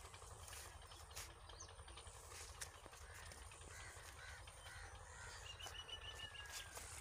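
Faint birds calling outdoors: a run of about six short repeated calls about halfway through, then a quick series of high ticking notes, over faint rustling and steps from walking among the vines.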